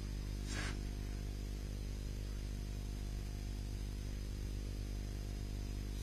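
Steady low hum with a buzz on the recording, with one brief soft hissing swish about half a second in.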